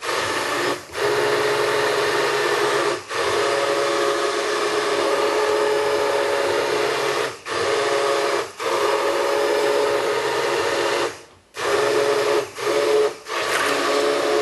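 White hand-held immersion blender running in a pot of thick pumpkin soup, a steady motor whine that stops briefly several times and starts again as it is switched off and on while puréeing.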